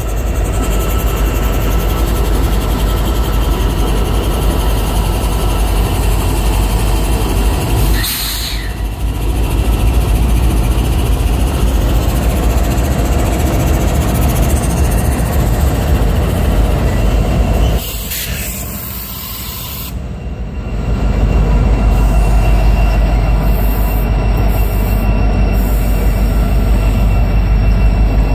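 Norfolk Southern SD70ACe diesel-electric locomotive, its EMD two-stroke V16 engine running as it rolls slowly past at close range over a switch, a steady loud deep rumble with wheels on the rail. The sound dips briefly twice, about eight seconds in and again around eighteen to twenty seconds.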